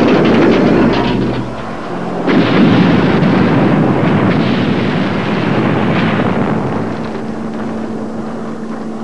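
Cartoon sound effect of a large explosion rumbling: the villain's artificial island blowing up, with a second blast about two seconds in. The rumble dies away after about six seconds into a steady engine hum.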